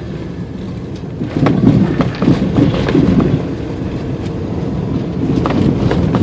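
Car driving, heard from inside the cabin: a steady low road rumble, with a louder, rougher stretch of rumbling and scattered knocks about a second in that lasts about two seconds.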